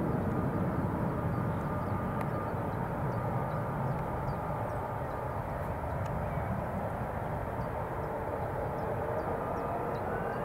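Jet airliner engines running with a steady rumble and a faint whine. Near the end the whine starts to rise in pitch as the engines spool up.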